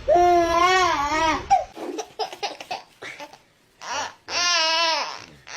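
A high-pitched voice making two long calls with a wavering, rising-and-falling pitch, one at the start and one near the end, with short choppy sounds in between.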